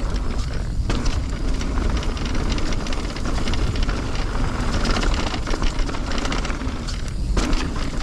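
Mountain bike descending a dirt trail: steady tyre noise on loose dirt and gravel with rattling from the bike, over a low rumble of wind on the microphone. Twice the tyre and rattle noise briefly drops away while the wind rumble carries on.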